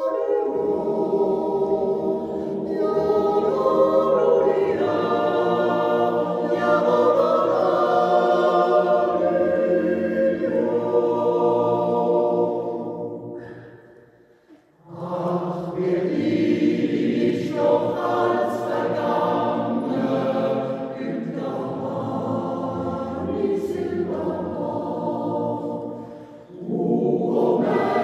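Swiss mixed yodel choir singing a Jodellied a cappella in long held phrases. The singing breaks off briefly about halfway through between phrases, and again for a moment shortly before the end.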